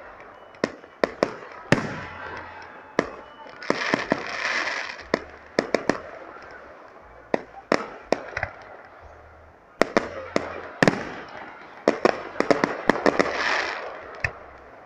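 Fireworks display: a run of sharp bangs from shells bursting overhead, irregularly spaced. There are two longer spells of dense crackle, about four seconds in and again from about twelve seconds.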